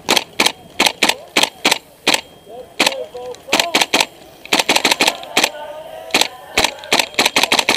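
Airsoft guns firing a rapid, irregular string of single shots, some in quick pairs, with distant shouting.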